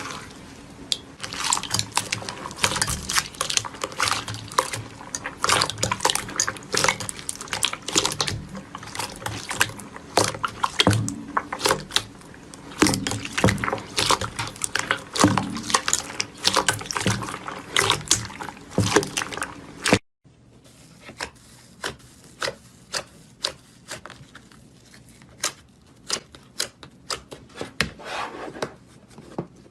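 Slime being squeezed and worked by hand: a dense run of wet clicks and small pops. About twenty seconds in, the sound cuts off suddenly, and after that the clicks come sparser and softer.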